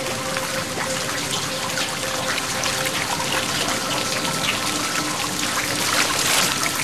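Water sloshing and trickling in a rock pool as a swimmer moves through it, with the splashing growing busier near the end.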